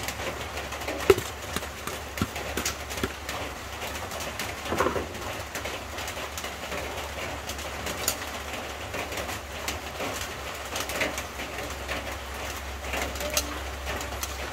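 A spatula stirring spaghetti into sauce in a wok, giving scattered clicks and scrapes, with birds calling in the background.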